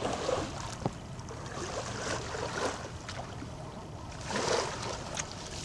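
Cast net being hauled back in by its hand line through shallow lake water: water swishing, sloshing and dripping. The sound swells loudest about four seconds in.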